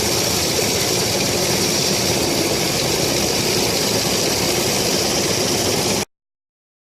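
Push pressure washer running steadily: an engine hum under a constant high hiss of spray. It cuts off suddenly about six seconds in.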